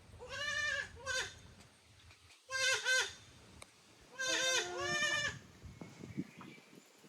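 Goats bleating: three loud wavering calls a second or two apart, each breaking into two parts, followed by a few faint knocks near the end.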